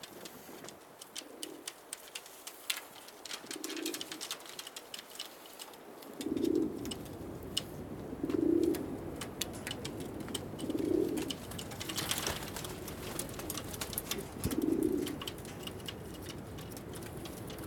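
Donek pigeons cooing: a low coo repeated about every two seconds, louder in the second half, with scattered light clicks throughout.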